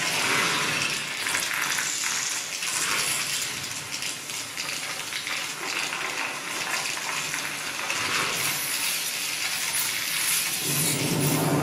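Electroacoustic fixed-media music played over loudspeakers: a dense texture of many small clicks over a rushing noise, with a low rumble swelling near the end.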